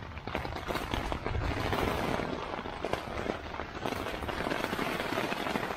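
Rain pattering hard on the rain fly of a Sierra Designs Full Moon 2 tent, heard from inside the tent: a dense, steady crackle of drop hits on the fabric.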